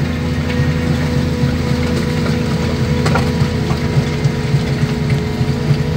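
Daewoo 225 crawler excavator's diesel engine running steadily as the machine tracks through deep mud, heard from inside the cab. A brief click sounds about three seconds in.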